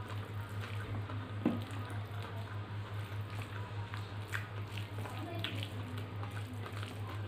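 Soft wet squelching and small clicks of a hand mixing rice and dal on a steel plate, with chewing, over a steady low hum. One sharper click comes about a second and a half in.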